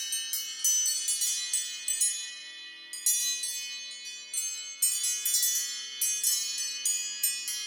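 An iPhone SE ringtone playing: a melody of high, bell-like chiming notes, struck in quick succession, each ringing on and fading.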